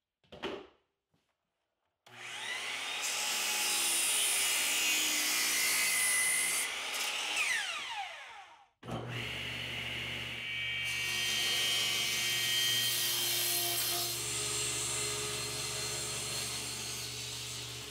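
Sliding compound miter saw spinning up and crosscutting a 2x4, then winding down with a falling whine. About nine seconds in, a table saw runs steadily with a constant motor hum as a 2x4 is ripped lengthwise through the blade.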